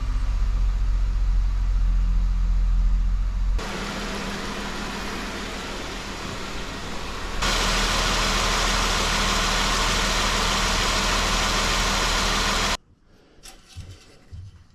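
Jeep Wrangler's 3.6-litre Pentastar V6 idling steadily, warming up on fresh oil after an oil change. It sounds like a low hum at first, then a brighter, louder running noise with the hood open, and it cuts off suddenly near the end. A few faint clicks follow.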